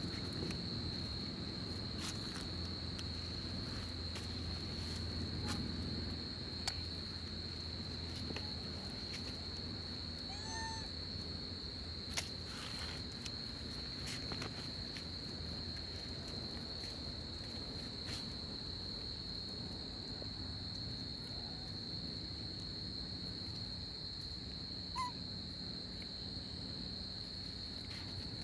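Steady high-pitched drone of night insects, a cricket-like chorus holding one tone, over a low background rumble. A few soft clicks, and a short squeak about ten seconds in.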